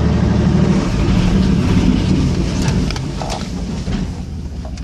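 1992 Chevrolet Silverado 1500 pickup's engine running as the truck moves, easing off somewhat in the second half, with scattered clicks and knocks.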